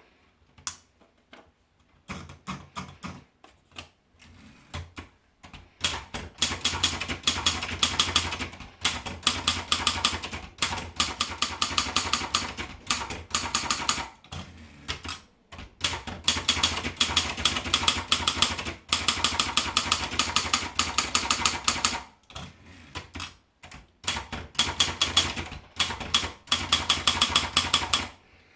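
Sperry Remington typewriter being typed on: a few scattered key strikes at first, then long runs of rapid clacking keystrokes broken by short pauses.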